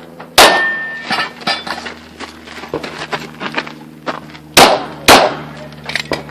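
Three pistol shots during an IDPA course of fire: one about half a second in, then a quick pair near the end, each with a short echoing tail. Lighter metallic clinks and pops come in between.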